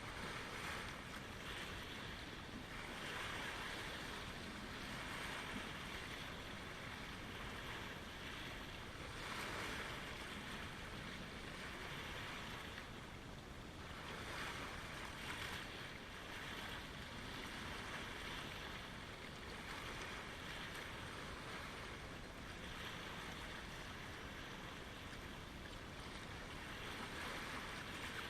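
Small lake waves lapping at the shore, swelling and easing every few seconds over a steady wash.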